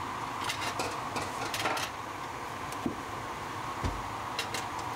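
Steady hiss of a kitchen appliance running, switched on just before, with scattered clicks and short clatters of utensils over it.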